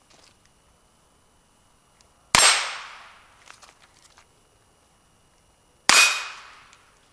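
Two shots from a Ruger Wrangler single-action .22 LR revolver, about three and a half seconds apart, each with a short echoing tail. A few faint clicks sound between the shots.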